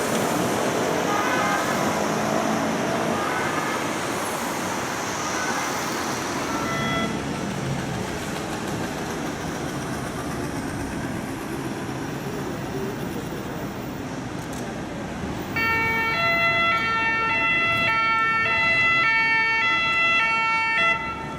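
Street traffic noise, then about three-quarters of the way in an ambulance's French siren starts loud, switching steadily back and forth between notes, and cuts off suddenly just before the end.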